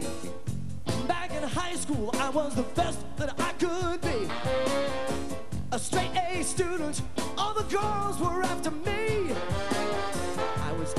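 Live funk band with a horn section playing a steady groove: drums and bass keep a regular beat while a pitched lead line bends and wavers above them.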